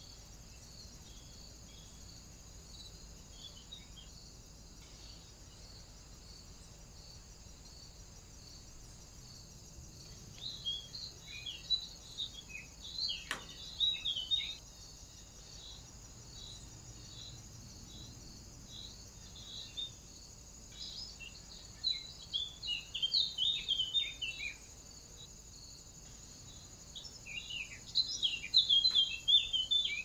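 Three spells of rapid bird chirping and song, a few seconds each, over a steady high, pulsing insect trill, with one sharp tap midway through the first spell.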